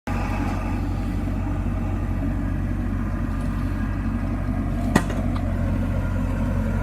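Engine of asphalt paving machinery running steadily with a low rumble, with a single sharp click about five seconds in.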